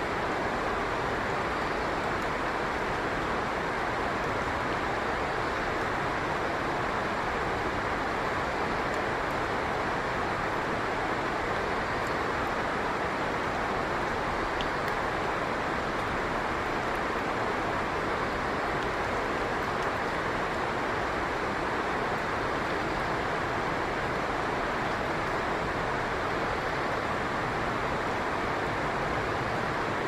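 Steady rushing of water, an even roar that does not change.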